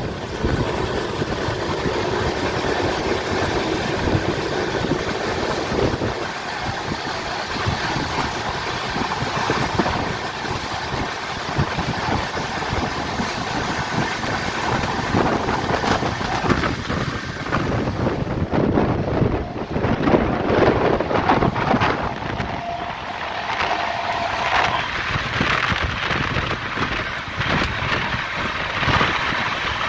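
Express passenger train running at speed, heard from an open coach doorway: a steady rumble of wheels on the rails with rushing air, and heavier clattering over the track between about 16 and 22 seconds in.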